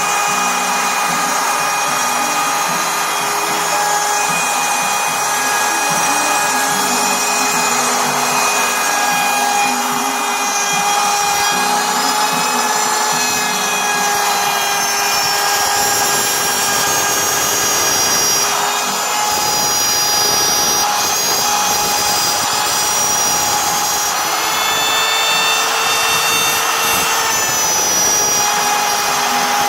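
CNC machine running a test job: a steady motor whine made of several tones that step up and down in pitch every few seconds as it moves, over a constant hiss.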